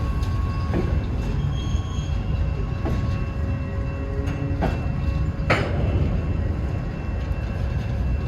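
Norfolk Southern freight train rolling past: a steady low rumble broken by a few sharp clanks of wheels and couplers, the loudest about two-thirds of the way through.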